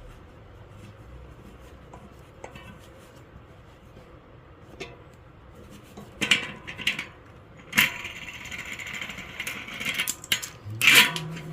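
Small metal bicycle hub parts and tools clinking against each other during hub work, with several sharp clinks from about six seconds in and a longer rattling stretch in the middle.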